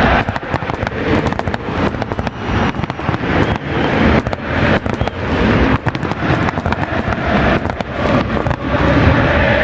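Rapid, irregular bangs and crackles of fireworks and firecrackers over a loud stadium crowd.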